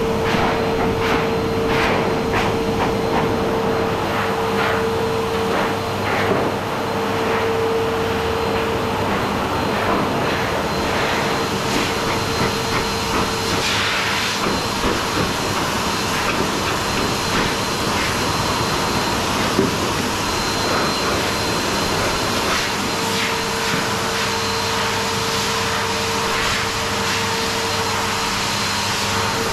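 High-velocity pet dryer (forced-air dog blower) running steadily, blowing a loud rush of air through a Bernese mountain dog's thick coat, with a constant whine from the blower motor that fades in the middle and comes back near the end.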